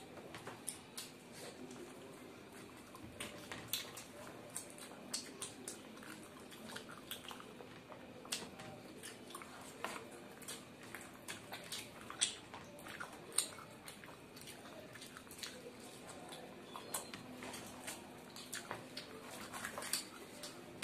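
Close-miked eating sounds: two people chewing and biting into luchi dipped in potato curry, with many irregular wet mouth clicks and smacks. Underneath runs a faint steady hum.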